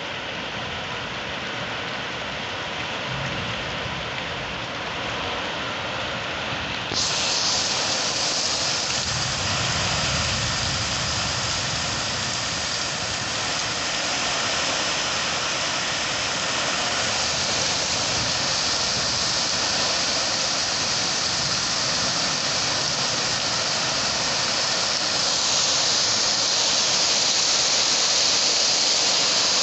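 Heavy rainstorm, a steady hiss of pouring rain. It gets abruptly louder about seven seconds in and louder again near the end.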